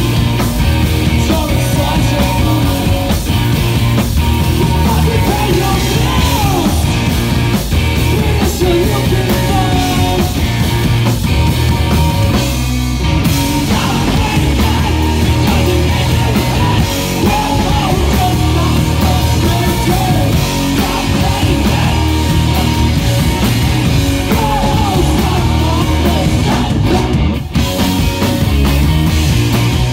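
Live punk rock band playing loud: distorted electric guitar, bass guitar and drums, with short breaks in the music about halfway through and again near the end.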